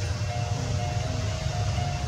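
A slow, simple tune of thin held notes that step from pitch to pitch, over a steady low rumble.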